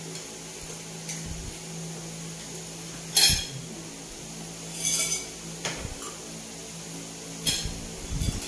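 Cutlery clinking against a plate while eating: three sharp clinks a couple of seconds apart, over a steady low hum.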